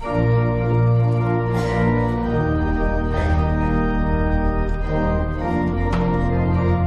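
Church organ starting suddenly and playing sustained chords, the low notes changing in steps every second or so.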